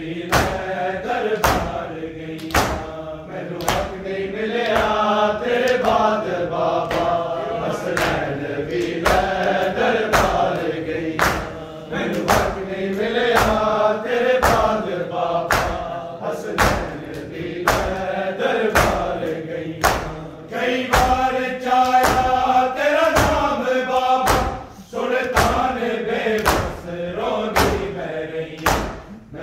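Men chanting a Punjabi noha together while beating their chests in matam: a steady beat of sharp hand slaps on bare chests over the sung lament.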